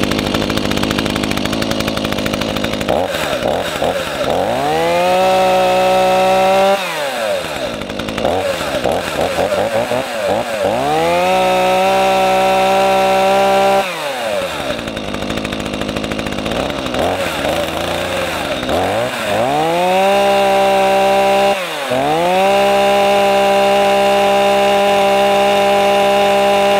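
Chainsaw engine idling roughly, then throttled up four times. Each time the pitch rises to a steady high whine, is held for a few seconds and drops back to idle. After a brief dip at about 22 s it is held at full throttle through the end.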